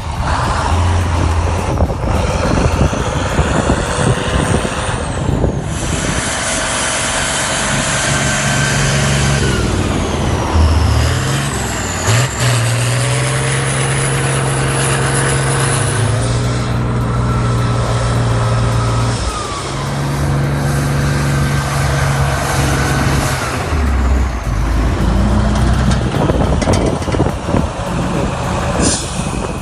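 Heavy truck engine running hard under load, its pitch climbing and dropping in steps as it revs and changes gear. The sound changes abruptly a few times.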